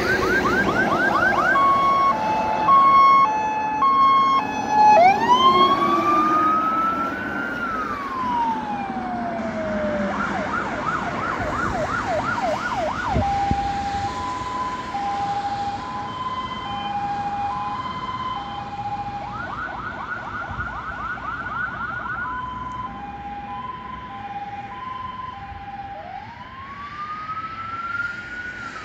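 Electronic siren of a Mercedes GBARt fire engine on an emergency run. It cycles between a fast yelp, a two-tone hi-lo and a slow wail that rises and falls, with the truck's engine under it. The truck passes and drives away, so the siren fades toward the end.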